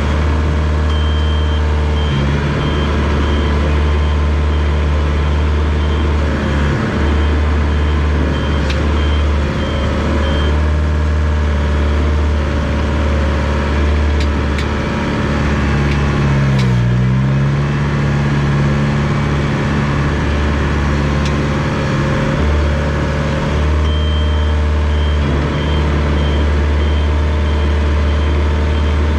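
Komatsu D21 bulldozer's diesel engine running steadily, with a reversing beeper sounding in a steady repeated pattern for the first ten seconds or so and again near the end. About halfway through, the engine briefly drops in pitch and recovers.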